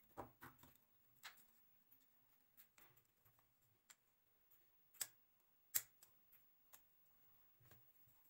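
Faint scissors snips about half a second in, then scattered light clicks and taps from handling a cut plastic bottle neck and rubber band, with two sharper clicks about five and six seconds in.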